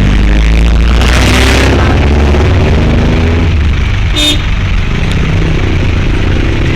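A road vehicle's engine running loud and low, heard while riding in it, revving up about a second in. A short, sharp high tone sounds about four seconds in.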